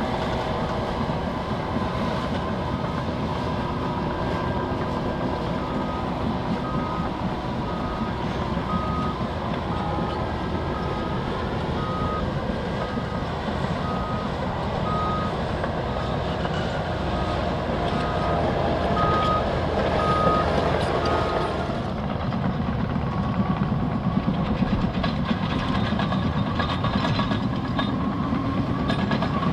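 Liebherr crawler bulldozers' diesel engines running with steel tracks clanking, while a reversing alarm beeps about once a second from about six seconds in until about twenty seconds in.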